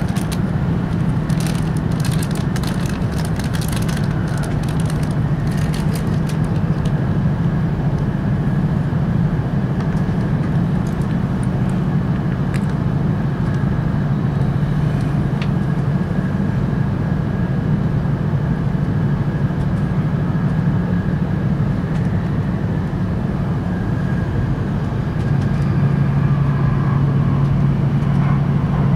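Running noise of an E5 series Shinkansen heard inside the passenger cabin: a steady low rumble and hum with a hiss above it. A flurry of light clicks sounds in the first few seconds, and the rumble grows a little louder near the end.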